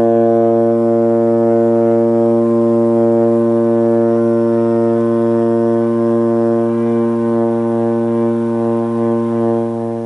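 Trombone holding one long, steady low note in first position, a low B-flat sustained on a single breath; the tone wavers slightly near the end as the air runs out.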